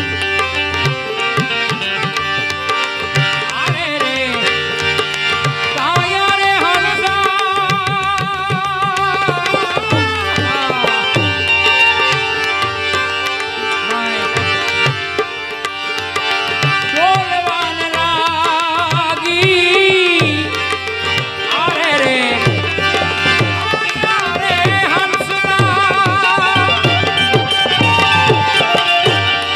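Gujarati santvani devotional music: steady tabla with a wavering, ornamented melody line above it.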